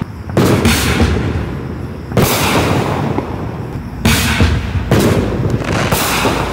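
Black Cat Bagged 12 Shot Artillery reloadable artillery shells fired from a mortar tube. About five sharp bangs of shells launching and bursting, spaced about two seconds apart at first and then about a second apart, each trailing off over a second or so.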